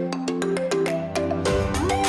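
Upbeat background music with a plucked, mallet-like melody over chords, and a bass line coming in about a second and a half in.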